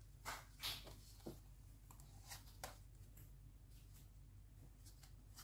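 Faint handling sounds of a plastic toy stovetop panel being turned over in the hands: a few light taps and rubs in the first three seconds, over a low steady hum.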